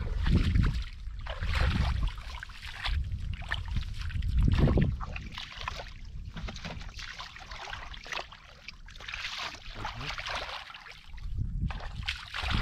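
Irregular splashing and sloshing of muddy water as someone wades and gropes by hand in a shallow, muddy rice-field puddle, with occasional bursts of low rumble.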